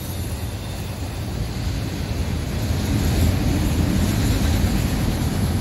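Freight train cars rolling past: a steady low rumble of wheels on rail that grows a little louder about halfway through.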